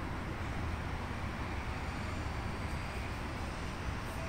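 Steady low outdoor background rumble, even throughout, with no distinct event.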